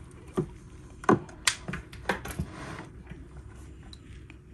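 Aquarium ornaments and gravel being pushed around by a hand in a freshly filled glass tank: about five sharp clicks and knocks of hard decorations against each other and the glass, the loudest about a second in, with light water swishing.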